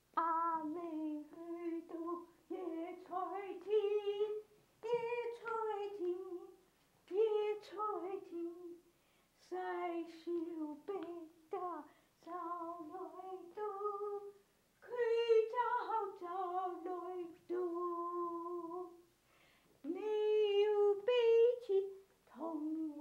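A woman singing a Cantonese children's song unaccompanied, in short phrases separated by brief pauses, some notes held with a light vibrato.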